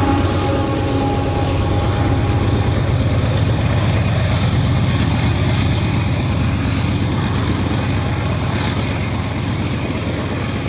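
Diesel-electric freight locomotive hauling an oil train of tank cars: a steady low engine drone over rolling wheel noise, slowly fading.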